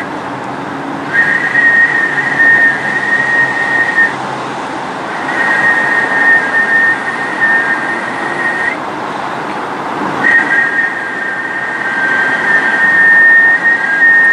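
Two steady high-pitched tones sounding together, held for about three seconds at a time with breaks of about a second, three times over, above a steady hiss.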